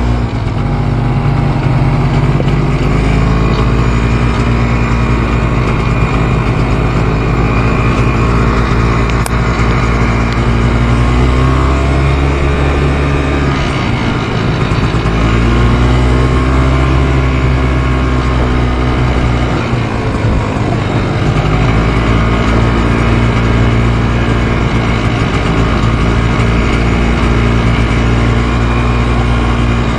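ATV engine running under way on a dirt trail, heard from the rider's seat, its pitch rising and falling with the throttle and easing off briefly about 13 and 20 seconds in.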